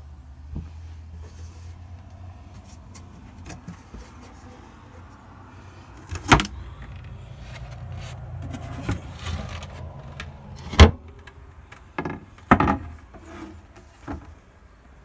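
Wooden galley cupboard doors and lids being opened and handled, with several sharp knocks and clacks (the loudest about halfway through and two more near the end) over a low hum.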